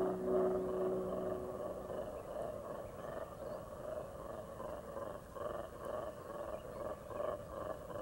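Black-and-white colobus monkeys' dawn chorus: a distant, continuous roaring call that breaks into repeated pulses in the second half. A few sustained tones fade out about two seconds in.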